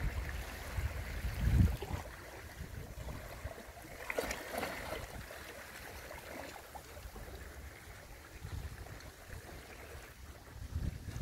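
Shallow seawater lapping and washing around rocks at the shoreline, with a stronger wash about four seconds in. Wind buffets the microphone with low rumbles near the start and again near the end.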